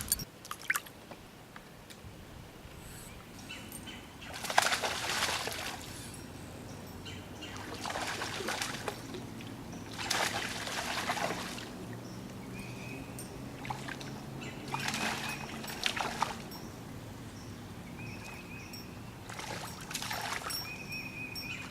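Water splashing and sloshing in about five separate washes, each about a second long. Short high bird chirps repeat a few times in the second half.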